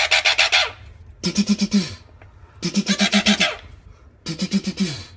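Monk parakeet giving harsh, rapid chattering squawks in four bursts, each a fast run of pulses that drops in pitch at the end, as a finger pokes at it.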